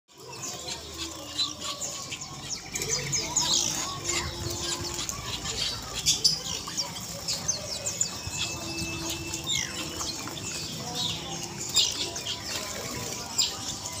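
Bird-market din of many caged birds chirping in short, high, overlapping calls, over the scuffing and wing-fluttering of a cage of zebra doves (perkutut) shifting about on their perches.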